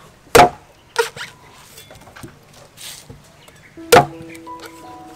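Cleaver chopping into a young green coconut on a wooden chopping block: two sharp chops about half a second apart near the start, then a louder chop about four seconds in as the blade bites deep into the coconut.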